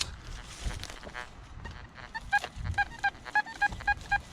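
Metal detector beeping rapidly on a target, a steady run of short, same-pitched beeps about five a second that starts about two seconds in.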